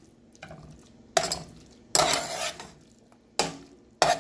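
A utensil stirring spaghetti coated in cheese sauce in a nonstick saucepan, knocking and scraping against the pan. There are about five sharp knocks, each trailing into a short scrape, at uneven intervals.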